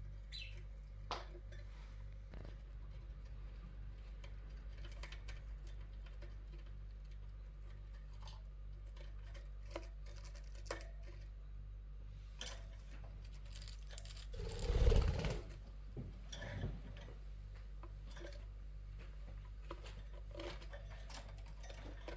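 Budgie beak nibbling and crunching fresh bamboo: small scattered clicks and crackles over a steady low hum. A louder rustling bump comes about fifteen seconds in.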